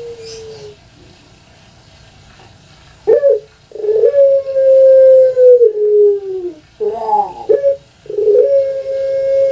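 Puter pelung, a Barbary dove (Streptopelia risoria) bred for its long call, cooing. A held note ends in the first second. After a pause of about two seconds comes a short sharp note, then a long held coo that sags in pitch near its end, a quick warbling phrase, and another long held coo.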